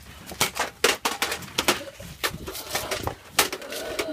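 A rapid, irregular series of sharp clicks and knocks, about a dozen over a few seconds.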